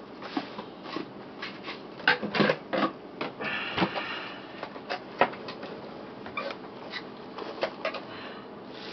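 Cardboard camera packaging being handled: scattered taps and knocks of the card, with a short scraping rustle between about three and four seconds in. The sounds thin out and grow fainter over the last few seconds.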